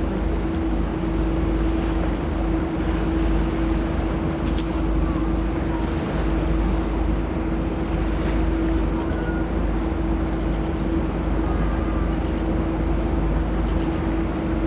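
Boat engine running steadily under way: a constant low drone with one steady hum held throughout, mixed with wind and water rush.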